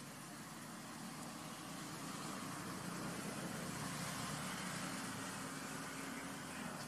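A low, steady engine-like hum over background noise, swelling toward the middle and easing near the end.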